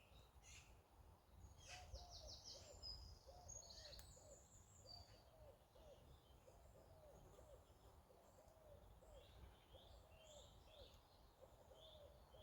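Faint woodland birdsong: high chirps and short trills from small birds, over a soft low hooting call repeated steadily from about a second and a half in.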